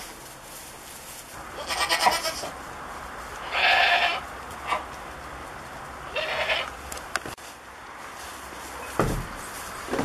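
Goats bleating: three bleats a couple of seconds apart, the middle one the longest and loudest. A dull thump follows near the end.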